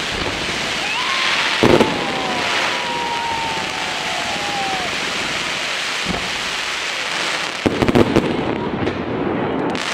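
Fireworks display: a steady crackle and hiss of bursting shells, with a loud bang about two seconds in and a long falling whistle. A quick cluster of bangs comes near the end.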